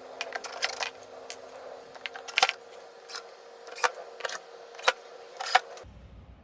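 A steady hum with a string of sharp clicks and knocks, which cuts off abruptly near the end, leaving only a faint low hum.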